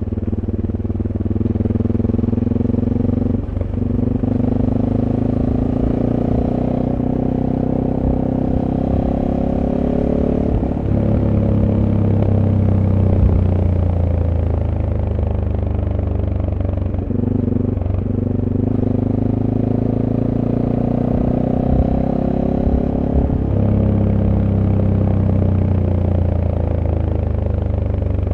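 SWM Superdual T motorcycle's 600 cc single-cylinder engine running through its stock exhaust, heard on board while riding. The engine note rises and falls with the throttle, with brief dips at gear changes about four times.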